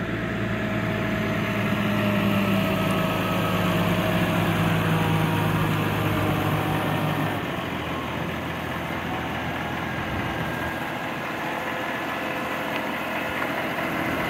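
Tractor engine idling steadily. Its deep low hum drops away about seven seconds in, leaving a lighter, steady engine sound.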